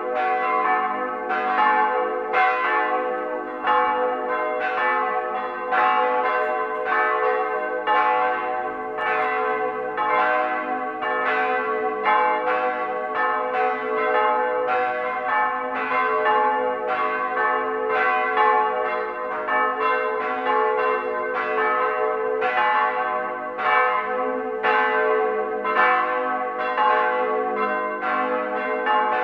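Högsäter church's bells swinging and ringing together: a steady, unbroken peal of overlapping strikes, about one to two a second, each note ringing on under the next.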